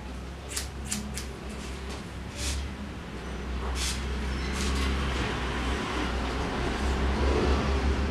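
Hair-cutting scissors snipping, a handful of short sharp snips mostly in the first five seconds, over a steady low hum.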